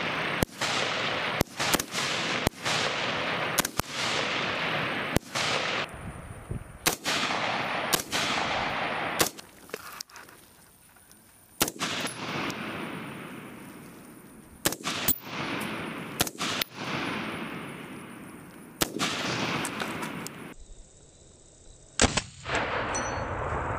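Rifle fire from M4-type 5.56 mm carbines: single sharp shots at an uneven pace, sometimes two close together, each followed by a long echo that trails off. There is a short lull about ten seconds in before the shooting resumes.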